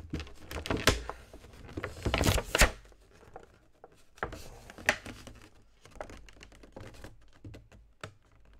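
Clear plastic packaging being handled and pried at: a run of clicks, knocks and crinkles, densest and loudest about two seconds in, then scattered light ticks.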